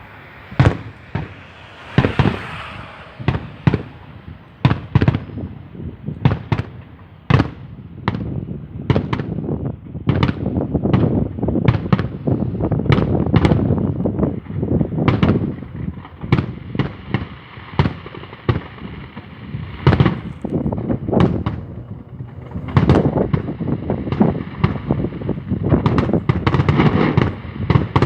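Fireworks going off: a rapid, irregular string of sharp bangs and cracks over a continuous low rumble. The explosions come thicker and the rumble builds about a third of the way in and again near the end.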